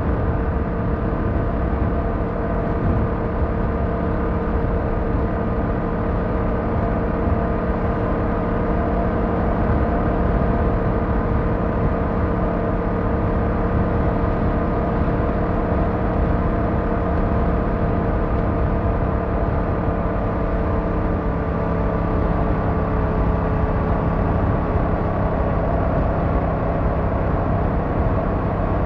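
A road vehicle driving at a steady speed: continuous road and engine noise with several steady humming tones and no sudden events.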